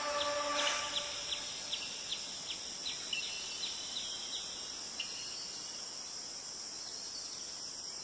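Insect chirping: short high chirps, about two and a half a second, over a steady high hiss, thinning out and stopping about five seconds in.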